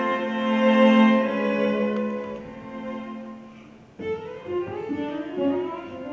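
String quartet playing classical music live on bowed strings. A sustained chord swells and then fades away over the first few seconds. About four seconds in, a new phrase enters with moving notes.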